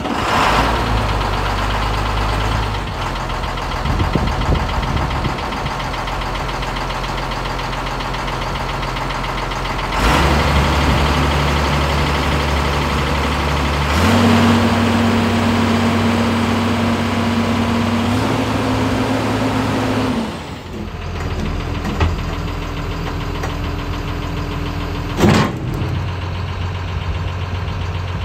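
Caterpillar 320L excavator's diesel engine running steadily, heard in several cuts at different engine speeds. In the middle a steady higher whine runs over the engine for about six seconds, and a single sharp knock comes near the end.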